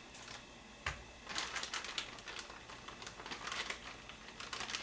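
Crinkling and rustling of a plastic fish cake package being handled and emptied, in quick irregular crackles, with one dull thump about a second in.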